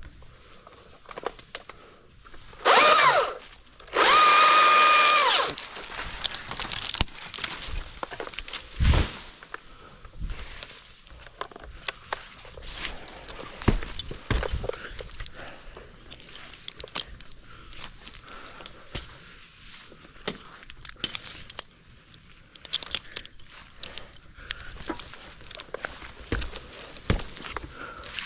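A chainsaw revs in two short bursts about three and five seconds in, the first rising and falling, the second held steady for about a second and a half. After that come scattered clicks, knocks and rustling.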